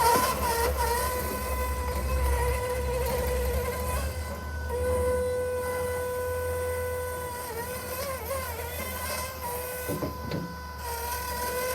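Electric drive of a Mammut stand-on mini skid steer running: a steady electric motor whine over a low rumble, its pitch dipping briefly a few times, with a couple of knocks near the end.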